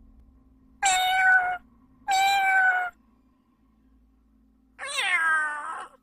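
A cat meowing three times, each meow under a second long; the last one rises and then falls in pitch.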